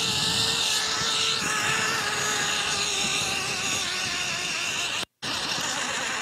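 Zip-line trolley running along a steel cable: a steady whine with a wavering pitch over a rush of air. The sound cuts out briefly about five seconds in.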